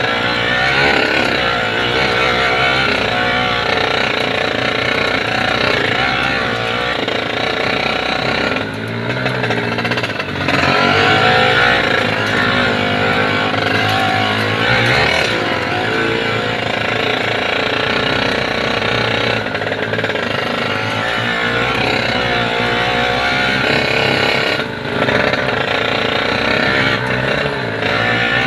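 Yamaha 80cc motorcycle engine running loud and hard under load, its pitch wavering up and down, with a few brief dips when the throttle eases.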